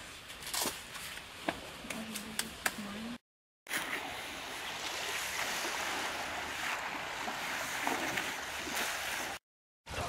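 Steady shore noise of wind and small waves at the sea's edge, preceded by a few light clicks and knocks; the sound drops out to silence twice for about half a second.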